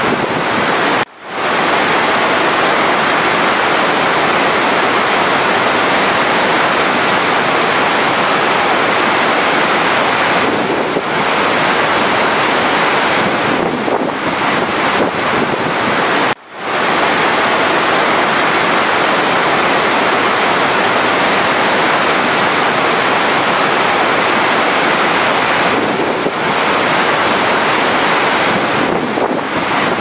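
Steady rushing of a huge waterfall, a wide curtain of water plunging into its basin. The sound drops out for a split second twice, about a second in and about halfway through.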